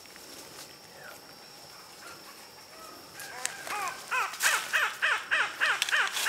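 Hippopotamus honking call: a rhythmic series of short, pitched honks, about three a second, starting about halfway through and growing steadily louder.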